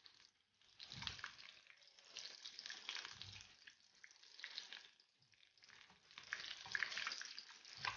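Breaded chicken and potato cutlets shallow-frying in hot oil in a non-stick pan: a faint crackling sizzle that swells and fades several times. A spatula turning them makes soft low knocks about a second in and again around three seconds.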